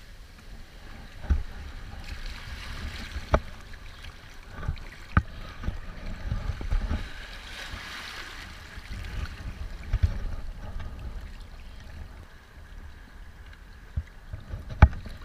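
Waves washing and sloshing over jetty rocks at the waterline, with a few sharp knocks standing out from the wash.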